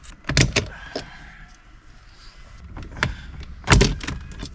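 Plastic dashboard side trims being prised off by hand: a series of sharp clicks and knocks as the trim clips snap free, the loudest near the end, over a low steady hum.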